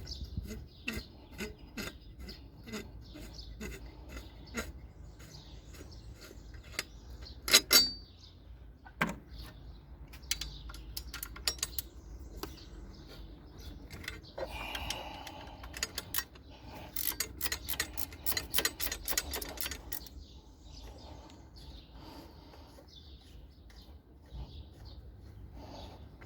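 Clicks and knocks of hand-tool work on metal, with two loud knocks a little under a third of the way in and a quick run of clicks later on.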